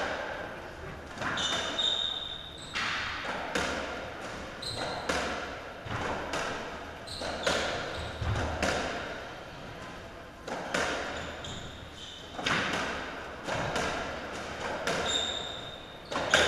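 Racketball rally: the ball struck by rackets and smacking off the court walls about once a second, each hit ringing in the enclosed court. Short shoe squeaks on the court floor come between some of the hits.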